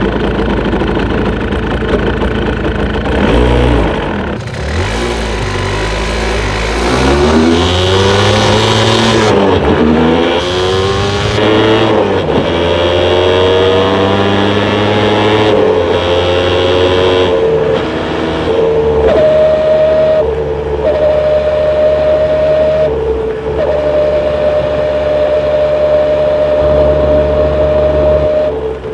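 Yamaha SDR200 two-stroke single-cylinder motorcycle engine pulling up through the gears, its pitch rising and dropping several times, then running steadily. From about two-thirds of the way in, a thin steady whine sits over the engine: the abnormal noise the owner attributes to sixth gear.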